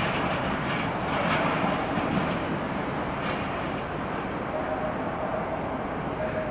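Airbus A319-132 on short final, its IAE V2500 turbofan engines giving a steady jet roar at approach power. A faint steady whine comes in about two-thirds of the way through.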